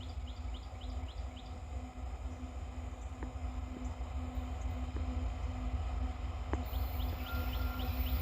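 Approaching coal train's diesel locomotives in dynamic braking: a low rumble with a steady hum, mostly from the dynamic-brake cooling fans, growing louder near the end as the train nears. A bird calls over it in quick runs of short falling notes near the start and again near the end.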